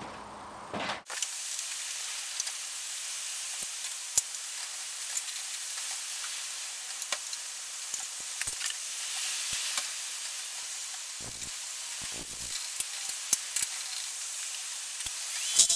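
Wood being turned on a lathe: a steady hiss of the tool shaving a spinning sapele blank, with scattered clicks and crackles, starting about a second in.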